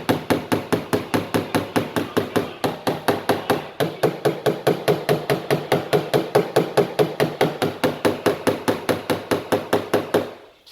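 Small dent-repair hammer tapping the sheet metal of a car door in fast, even light strikes, about five a second. It is tapping down the crease and the high spots after the metal was pulled with glue tabs. The tapping stops near the end.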